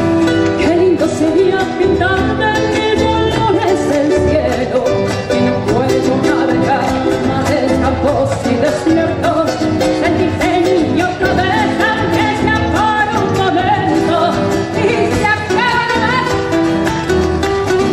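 Argentine folk song: a singing voice over acoustic guitar accompaniment.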